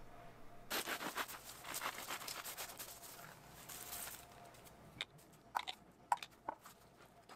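Crisp crust of a freshly baked bolillo roll crackling and crunching as the roll is opened, a fine quiet run of crackles lasting about three and a half seconds. A few separate sharp clicks follow near the end.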